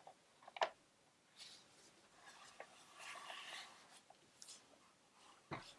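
Quiet handling noises of a compact photo printer and its power cord being plugged in: a sharp click about half a second in, soft scraping and rubbing for a couple of seconds, and another sharp knock near the end.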